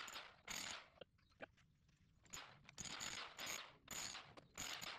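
Electric demolition hammer with a chisel tip chipping plaster off a gunite pool wall, running in short bursts of a fraction of a second each, with a pause of about a second near the start.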